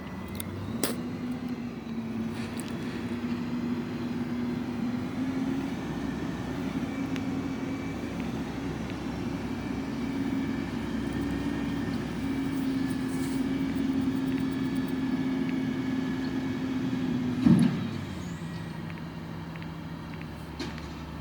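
Garbage truck's diesel engine running at raised revs, its pitch stepping up a little at a time. About 17 seconds in there is a sudden loud burst, after which the engine drops back to a lower, steady idle.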